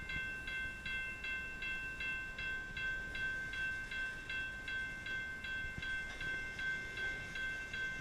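Railroad crossing warning bell ringing steadily, about two and a half strikes a second, over the low rumble of a double-stack container train rolling through the crossing.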